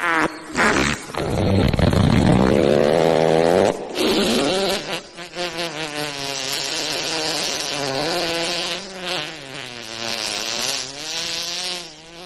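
Wet fart sound effects: a short sputter, then a long buzzing fart, then a longer drawn-out one whose pitch wavers up and down, broken by a few brief sputters.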